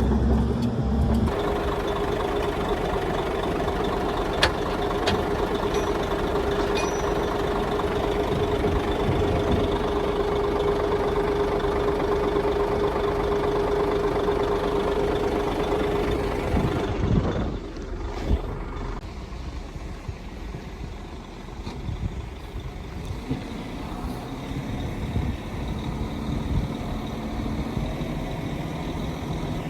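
Heavy diesel earthmoving machinery running steadily. A constant whine runs through the first half and stops about seventeen seconds in, after which the engine sound is quieter and more uneven. One sharp click comes about four seconds in.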